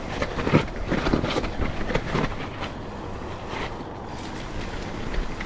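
Mountain bike rolling down a wet dirt singletrack: tyre noise with a string of knocks and rattles from the bike over bumps, and wind noise on the microphone.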